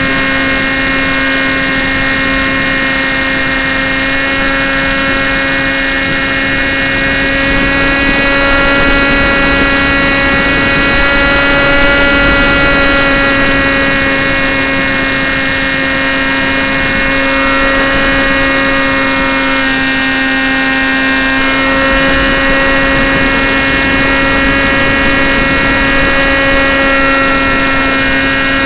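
Onboard sound of a model aircraft's motor and propeller running at a steady throttle, heard through a camera mounted on the plane: a loud, steady whine with some rushing noise, its pitch shifting slightly a few times.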